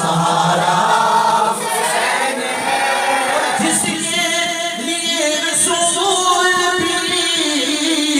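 Devotional vocal music: a group of voices singing long held notes.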